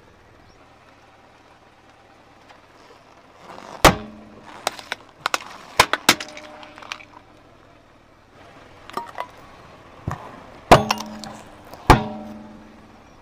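A car tyre rolling over and crushing small plastic-and-metal household items such as handled scouring pads: a run of sharp cracks and snaps, the loudest with a brief ringing after them. The cracking comes in two bursts, one about four seconds in and another about nine seconds in.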